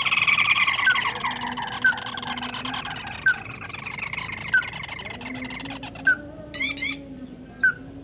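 Crake calls: a fast trill of repeated notes sliding down in pitch, then single short rising notes about every second and a half. From about five seconds in there is a low steady hum, and near the end a quick run of several rising notes.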